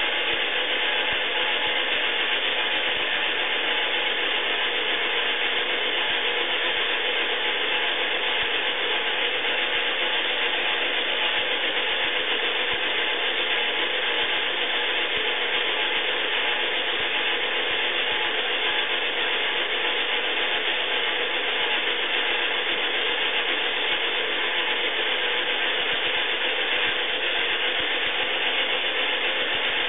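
A 1990s Iriza battery-powered plastic toy washing machine running its wash cycle: its small motor and plastic gears turn the drum with water and laundry inside, making a steady, even mechanical whir.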